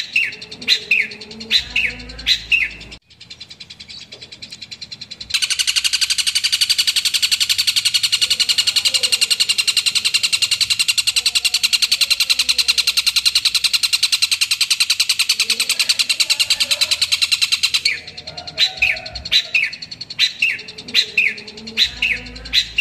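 Long-tailed shrike (cendet) calling. It opens with sharp, falling calls, several a second, then goes into a long, loud, harsh rattling buzz of rapid pulses lasting about twelve seconds. The sharp falling calls return near the end.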